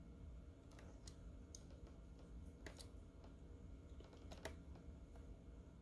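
Near silence, broken by a handful of faint, irregular clicks as a Hot Wheels die-cast car is handled and turned over in the fingers.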